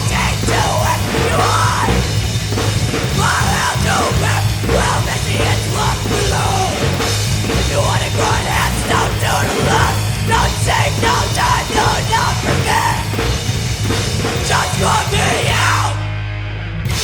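Live rock band playing a hard-rock song. About a second before the end the drums and top end drop out briefly, leaving a held low note.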